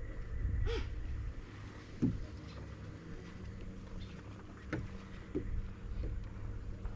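Wind buffeting the microphone with water lapping at a fishing kayak as it drifts. A few brief knocks or splashes stand out about a second in, again at two seconds, and twice near the end.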